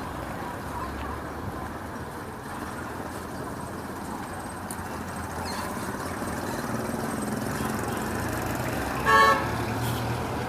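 Small-town street traffic: a steady hum of passing cars that swells slightly partway through, with one short car-horn toot about nine seconds in, the loudest sound.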